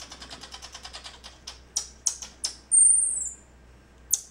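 Baby common marmoset calling in agitation: a rapid string of sharp, very high chirps and clicks, then one loud high whistle, under a second long and dropping slightly at its end, about three seconds in.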